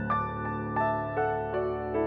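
Slow instrumental background music: single keyboard-like notes struck about twice a second over held lower notes.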